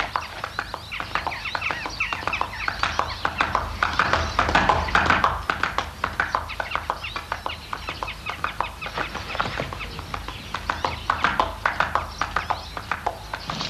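Chickens clucking, with short calls rising and falling, over a fast, continuous run of hoofbeats from a galloping horse.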